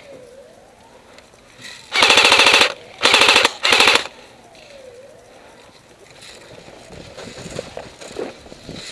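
Airsoft rifle firing on full auto in three short bursts about two to four seconds in, a rapid string of sharp shots in each burst.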